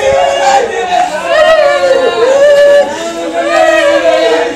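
Several women's voices in a sung mourning lament, long drawn-out notes that slide down in pitch and overlap one another.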